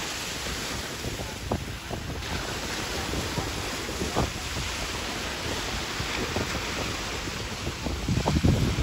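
Wind buffeting the microphone over a steady rushing noise, with a few faint knocks.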